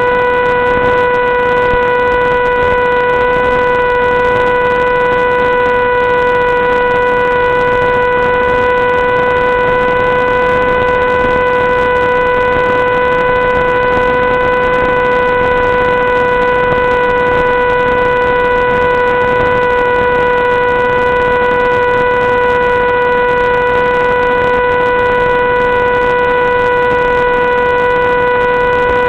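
A steady buzzing tone at one fixed pitch, with its overtones and a layer of hiss, unchanging throughout.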